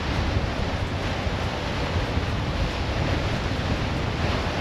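Surf breaking and washing over shoreline boulders in a steady rush, with wind buffeting the microphone and adding a low rumble.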